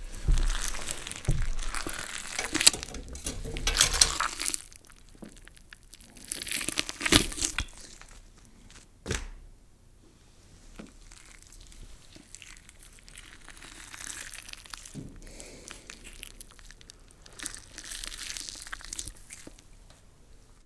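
Slime being squeezed and pressed by hand, giving crackling, squishing sounds in several bouts, loudest in the first few seconds, with one sharp pop about nine seconds in and softer squishing after.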